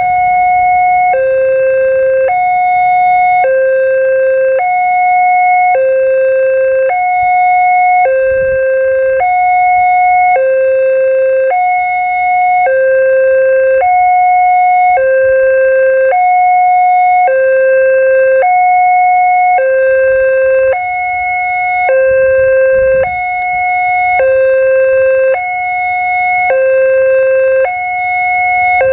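Railway level-crossing warning alarm: an electronic two-tone signal, alternating between a lower and a higher tone about once a second, warning that a train is approaching.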